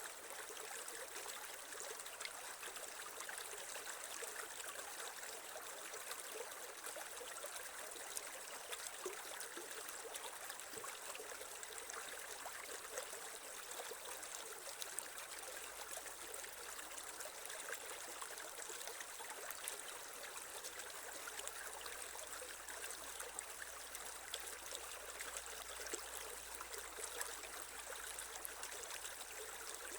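Creek water running and trickling over stones, a steady babbling with small splashes and no pauses.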